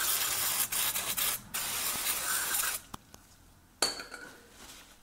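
Aerosol spray can hissing in long bursts as it cleans oil off an engine sump around the freshly tightened drain plug. The spraying stops about three seconds in, and a sharp click with a short, fading hiss follows about a second later.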